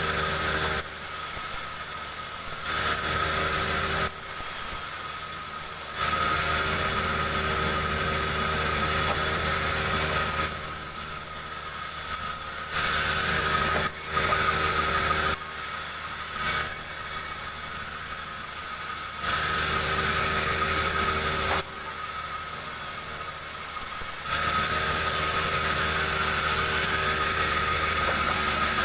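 Chainsaw ripping a jengkol log lengthwise. The engine runs throughout, stepping up to full revs for stretches of one to four seconds and dropping back between them.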